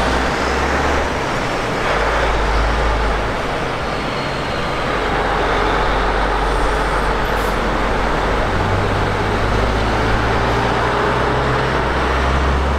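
Road traffic passing: diesel semi-trucks, among them a heavy-haul tractor pulling a loaded multi-axle lowboy trailer, and cars. Their engines run with a low drone over steady tyre noise, and the deep engine rumble swells twice, strongest near the end.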